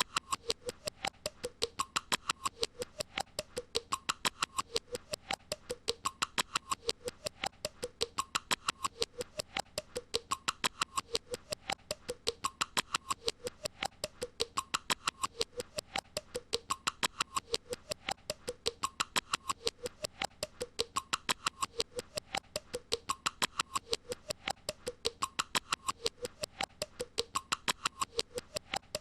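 The same short squeaky, clicking sound looped over and over without a break. Rapid even clicks come several times a second, and a squeaky pitched figure repeats about every two seconds.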